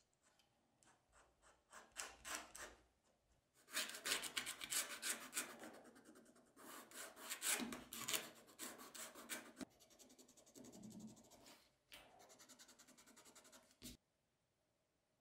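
A small hand tool scratching along the edge of a steel ruler across leather on a cutting mat, in quick repeated strokes that come in several runs and stop abruptly near the end.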